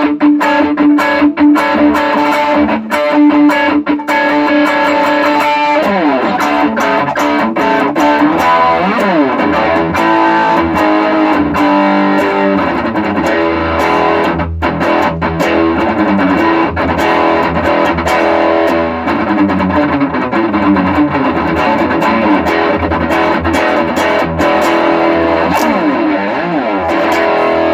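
Electric guitar played through effects pedals routed by a true-bypass loop switcher, in a sound test of the switcher. Held chords at first; about six seconds in, the playing turns to notes that sweep up and down.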